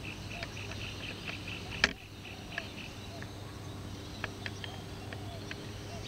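Rural pond-side ambience: a rapid, evenly pulsing high-pitched chirping that stops about two seconds in, at a single sharp click. After that come scattered short chirps and faint calls over a low steady hum.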